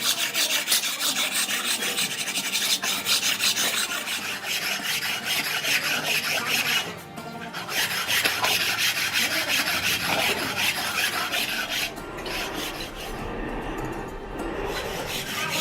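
Rapid, repeated rasping strokes of a hand tool scraping an engine part, with a brief pause about seven seconds in.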